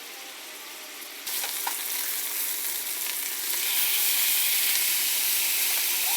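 Chicken breasts sizzling as they fry in melted butter in a pan over medium heat, a steady hiss that gets louder in two steps, about a second in and again midway.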